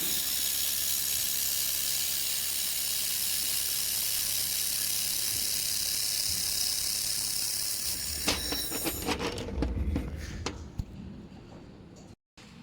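3000W handheld fiber laser machine at work: a steady loud hiss with faint whining tones, then about eight seconds in a run of sharp crackles and pops lasting about three seconds.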